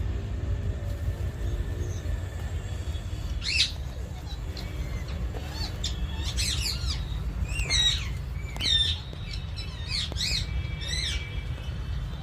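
Green parrot giving short harsh squawks, about six of them spaced a second or two apart, over a steady low rumble.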